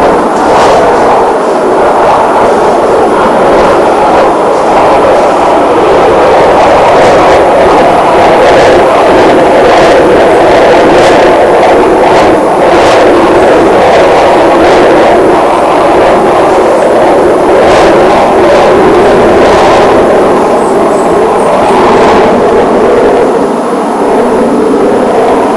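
Aircraft overhead: a loud, steady engine roar that holds without fading.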